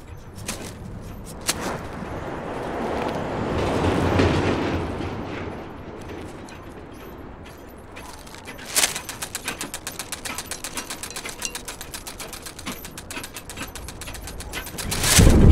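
Film sound effects: a noisy swell that rises and fades about four seconds in, then a sharp crack and a rapid run of rattling clicks, several a second, ending in a loud deep boom.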